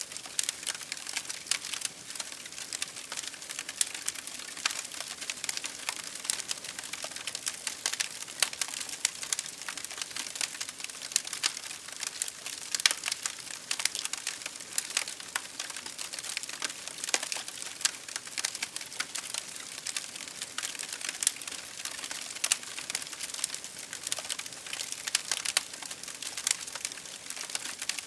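Firewood burning in a campfire, crackling steadily with many sharp pops and snaps.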